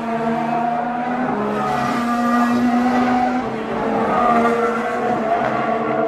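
Formula 1 cars' 1.6-litre V6 turbo-hybrid engines running on the circuit. Several engine notes at different pitches overlap, some holding steady and others rising and falling.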